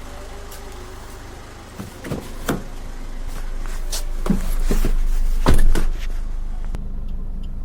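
Swift diesel engine running at idle with a steady low hum that grows louder partway through. Over it come several sharp clicks and knocks, and a louder thump about five and a half seconds in.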